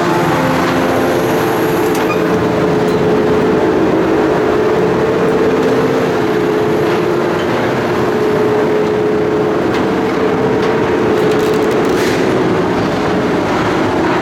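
Loud, steady mechanical drone with a held humming tone and no clear rhythm.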